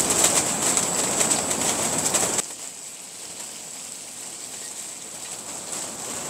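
Strong sea wind buffeting the tent: a rushing noise with fast fluttering. It drops abruptly to a much quieter hiss about two and a half seconds in.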